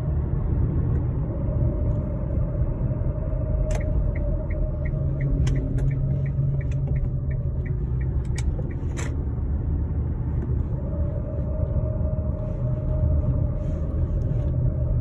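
Road rumble of a 2013 Kia Sportage AWD with a steady whirring from its worn driveshaft centre support bearing, heard while coasting. The whir fades out about six seconds in and comes back about eleven seconds in. An even run of light ticks, two or three a second, and a few sharp clicks sound between about four and nine seconds in.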